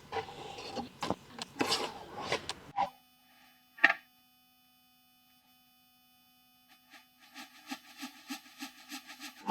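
Several rasping strokes of a hand tool working the wood of a cutting board, then an abrupt cut to steady electronic tones with one sharp click, and a pulsing tone pattern that fades in near the end.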